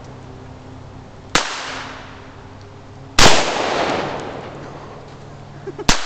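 AR-15 rifle fired three single shots a couple of seconds apart, the middle one the loudest, each sharp crack followed by a long echo that fades over a second or more.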